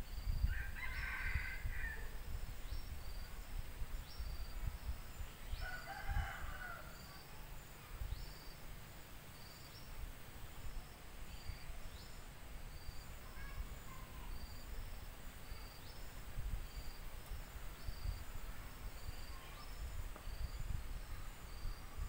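A rooster crowing twice, about half a second in and again about six seconds in. Under it an insect chirps about once a second, and there is a gusty low rumble.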